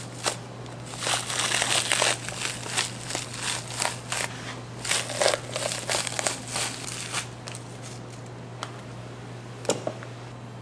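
Irregular crinkling and rustling with scattered clicks for about seven seconds, then only a couple of isolated clicks, over a steady low hum.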